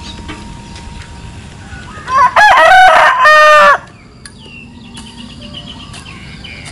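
A rooster crows once, loud, starting about two seconds in and lasting under two seconds. Softer short calls follow.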